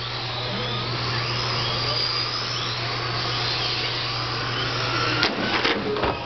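Several Tamiya TT-01 electric RC touring cars racing on a carpet track: the whine of their motors rises and falls in pitch as they accelerate and slow, over a steady low hum. A sharp knock about five seconds in, followed by a few clatters.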